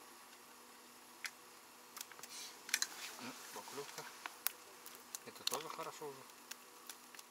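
A steady faint buzzing hum, with a few sharp small clicks and some quiet low voices in the middle.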